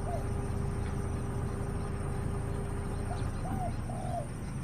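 Short bird calls, each a brief arched note, repeated a few times with a slightly longer one near the end, over a steady low hum.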